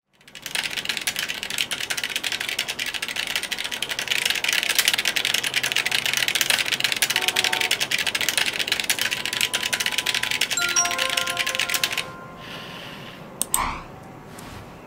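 Rapid, continuous typing on a computer keyboard, with a few short beeping tones over it; the typing stops abruptly about twelve seconds in. Near the end come a sharp click and a brief swoosh.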